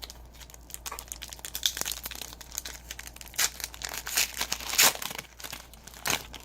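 Wrapper of a 2016-17 Donruss Optic basketball retail card pack being torn open and crinkled in the hands: an irregular run of crackling rustles, loudest about five seconds in.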